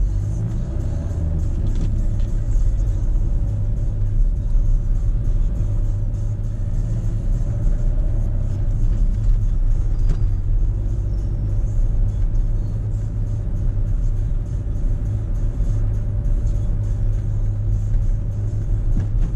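Car driving in traffic heard from inside the cabin: a steady low rumble of engine and road noise.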